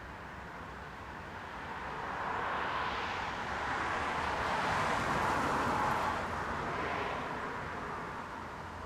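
Cars driving past on a busy road, their tyre and engine noise swelling to a peak about midway and fading away again, with more than one vehicle going by in close succession.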